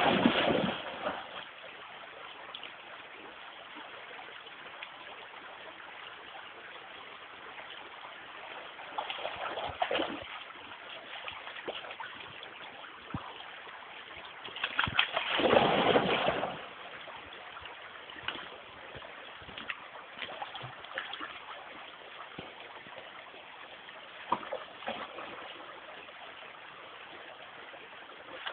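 Springer spaniel swimming and splashing in a flowing river, over a steady sound of running water. There is a loud burst of splashing right at the start, smaller splashes about nine to ten seconds in, and the loudest splashing about fifteen to sixteen seconds in.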